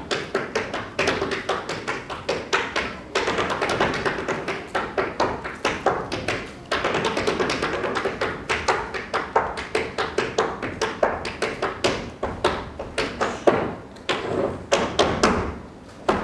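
Tap shoes striking a stage floor in an unaccompanied dance rhythm: fast runs of sharp taps, several a second, broken up by quicker flurries and heavier accented stamps.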